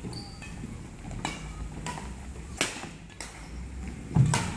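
Badminton rackets striking a shuttlecock in a fast rally, sharp cracks about every two-thirds of a second, with short shoe squeaks on the wooden court. Near the end a hit comes with a heavy footfall thud, the loudest sound.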